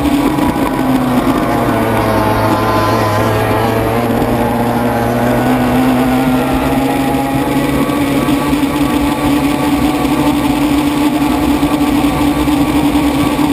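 A racing powerboat's outboard engine at high revs, heard up close from onboard at speed. The engine note dips about two seconds in, then climbs back and holds steady.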